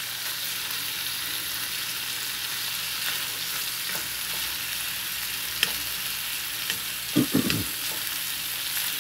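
Bacon strips sizzling steadily in a nonstick skillet, with a few light clicks of a metal fork against the pan as the strips are pulled apart.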